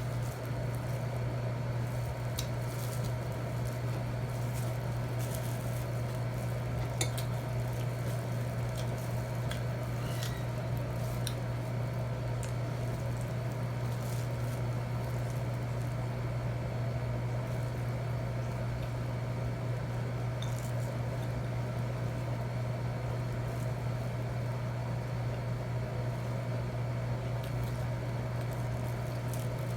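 Eating at a table: scattered light clinks of utensils on dishes and mouth sounds, a few sharper clinks now and then, over a steady low hum.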